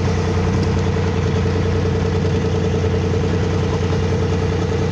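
Fishing boat's engine running steadily, a constant low drone with a steady higher tone over it.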